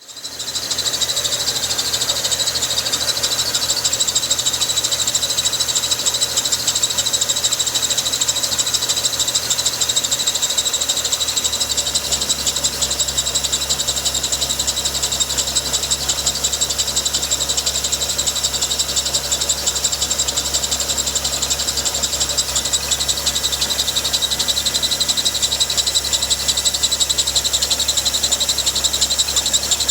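BMW N55 turbocharged straight-six in a 2012 135i running, with a steady high-pitched squeal from the engine bay that pulses rapidly like a chirp. The owner cannot trace its source.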